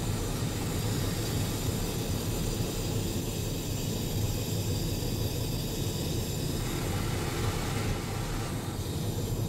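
Diesel locomotive running along the track, heard from inside its cab: a steady low engine drone mixed with wheel-on-rail noise.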